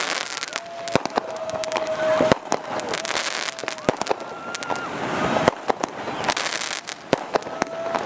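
Fireworks bursting close overhead: a rapid, irregular string of sharp bangs and crackles.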